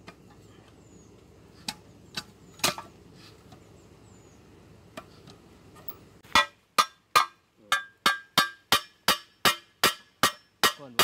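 A hatchet used as a hammer, driving a stake through the plate of an offroad ground anchor: a steady run of sharp strikes, about two or three a second, starting a little past halfway. A few single knocks come earlier as the anchor is set in place.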